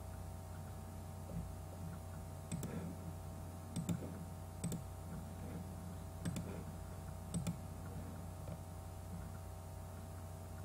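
About five sharp computer clicks spread over a few seconds as an on-screen document is moved through, over a steady low hum.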